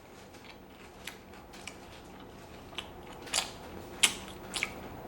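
Someone eating crunchy cereal: scattered crisp crunches, few at first and coming closer together and louder in the second half.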